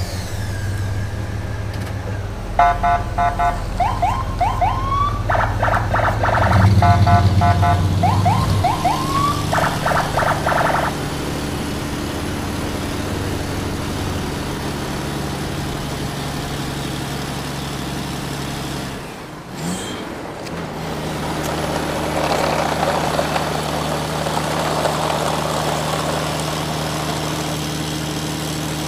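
Steady truck engine idling hum, with a run of rapid electronic beeping and short rising siren-like tones from about three to eleven seconds in. The hum breaks off briefly near twenty seconds and then resumes.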